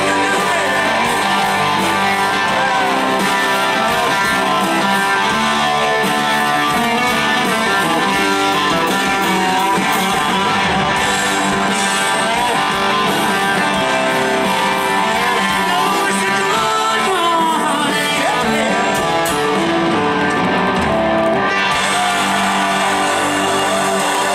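Live rock band playing: electric guitars, drums and keyboard, with a man singing.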